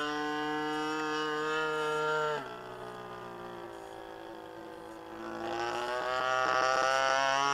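Radio-controlled model airplane's motor and propeller heard from the ground as a steady pitched drone. About two and a half seconds in, the pitch and loudness drop suddenly, then climb again from near the end.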